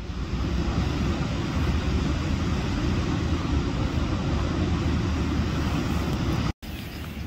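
Floodwater pouring over a river weir: a steady rushing noise, heavy in the low end, with a brief dropout near the end.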